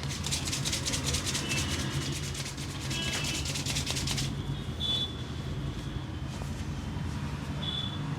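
Hands rubbing rapidly over hair and scalp in a head massage: a fast, even run of rasping strokes that stops about four seconds in.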